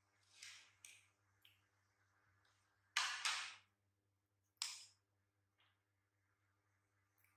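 Baby macaques eating juicy watermelon chunks: a handful of short smacking and slurping noises, the loudest a close pair about three seconds in, over a faint steady hum.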